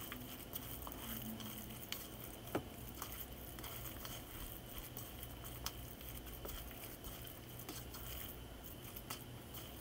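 Faint squishing of a plastic-gloved hand kneading a minced-pork and garlic stuffing in a plastic bowl, with scattered light ticks, over a low steady hum.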